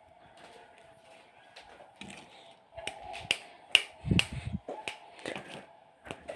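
A quick run of sharp clicks and knocks, with a low thud in the middle, over a faint steady hum.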